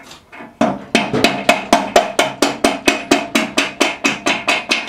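Rapid hammer blows, about four a second, on a socket and short extension, driving a spindle bearing up out of an MTD riding mower deck's spindle housing from the underside.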